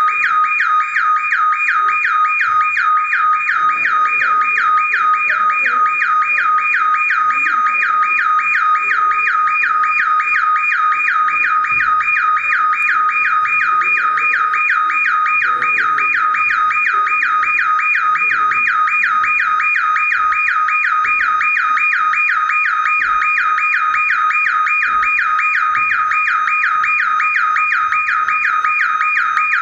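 Electronic alarm sounding continuously: a loud, shrill warbling tone that sweeps rapidly up and down several times a second without a break. Faint murmuring voices lie underneath.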